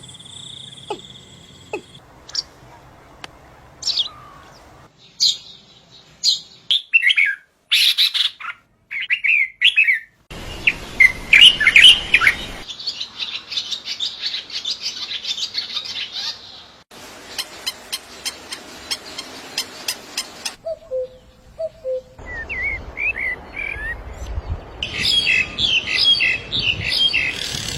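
Several different birds singing and calling in turn, each a separate recording with abrupt cuts between them: chirps, sliding whistled notes and fast runs of repeated notes.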